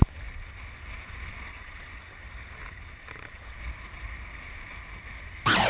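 Wind rumbling on a GoPro camera's microphone, with a faint hiss over it and a sharp click at the very start. Near the end, loud electronic music with record scratching cuts in.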